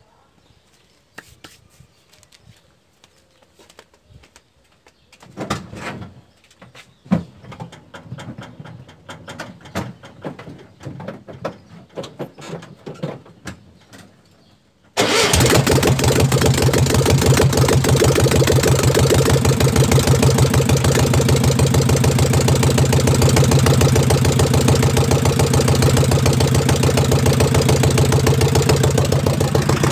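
Scattered knocks and clicks, then about halfway in a VW Beetle's air-cooled flat-four engine comes in suddenly and runs loud and steady with its exhaust removed, open straight from the engine.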